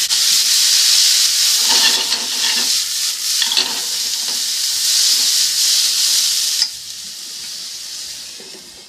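Steamed yakisoba noodles sizzling and steaming loudly in a hot pan after a splash of hot water, with chopsticks stirring and scraping through them. About six and a half seconds in, the hiss drops suddenly to a quieter sizzle.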